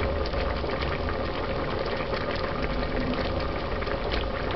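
Pot of Jamaican stew peas boiling hard, thick red bean stew bubbling and popping steadily as it reduces on high heat, over a steady low hum.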